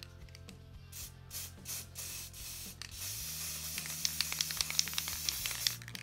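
Aerosol can of white acrylic spray paint: a few short spurts, then one continuous spray hiss from about three seconds in that cuts off just before the end.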